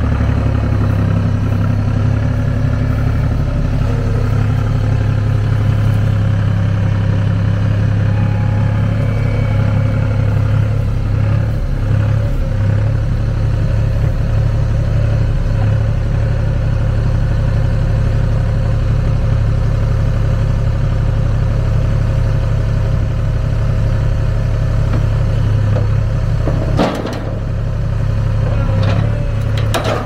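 Diesel engine of a UNC-060 skid steer loader running steadily under hydraulic load as it lifts a log, its pitch shifting slightly now and then. A single sharp knock comes near the end.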